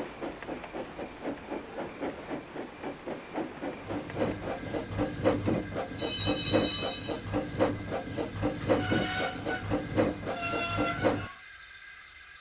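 Steam locomotive chuffing in a steady rhythm that grows louder about four seconds in. A high whistle sounds partway through, then a lower whistle. The chuffing cuts off abruptly near the end, leaving a faint steady hiss.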